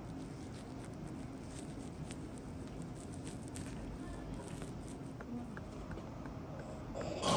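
Faint soft taps and rubbing of hands massaging a bare foot over a steady background hum, then near the end one louder brief knock from a padded wooden massage hammer striking the foot.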